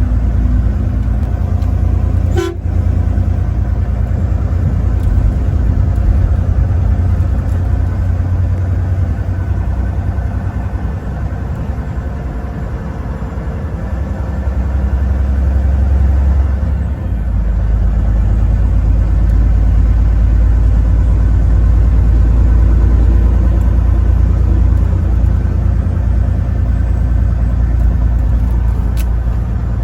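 Truck driving on a highway: steady low engine and road rumble with a few steady tones over it, and a short click about two and a half seconds in. The rumble eases a little in the middle and grows louder again a little past halfway.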